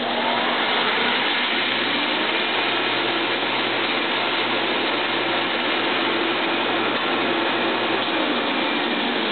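Leaf casting machine's suction pump switched on: a whine rises as the motor spins up in the first second, then a steady rushing hum as it pulls the water down through the screen beneath the sheet.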